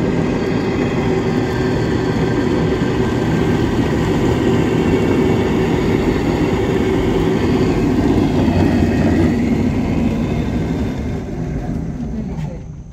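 Open cable car running along its steel cable: a steady mechanical rumble with a held hum from the pulley wheels, fading over the last few seconds as the car slows into the station.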